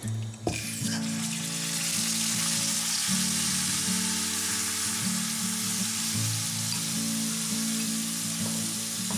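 Marinated chicken pieces going into hot oil in a wok and sizzling steadily from about half a second in, with quiet background music underneath.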